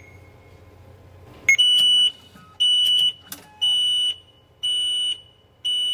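Takamizawa VTQ ticket vending machine beeping. A short high key tone comes first, then from about a second and a half in a series of half-second high beeps about once a second, the last ones quieter.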